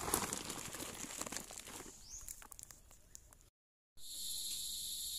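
Dry leaves and brush rustling and crackling with a few clicks, fading away over about two seconds. After a brief dropout, a steady high-pitched chorus of night insects starts.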